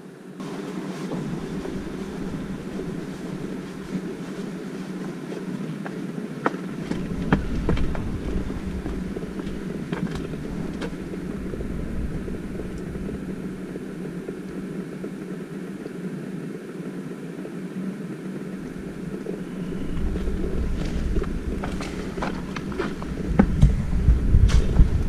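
Outdoor ambience: a steady, even noise with low gusts of wind buffeting the microphone. Wind comes in about a quarter of the way in and again near the end, and a few sharp clicks sound near the end.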